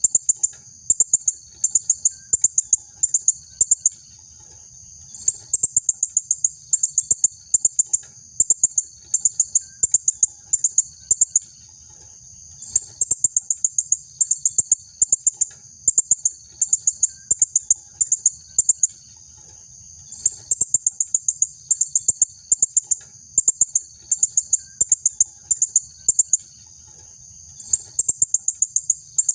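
Female blue-crowned hanging parrot (serindit) calling: rapid trains of sharp, very high-pitched chirps, repeated in bouts separated by short pauses.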